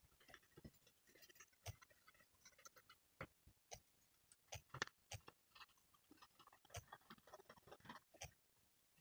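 Near silence with faint, irregular taps and light scrapes of a paintbrush dabbing and stroking green paint onto a lemonade container, a few a second, the loudest about five seconds in.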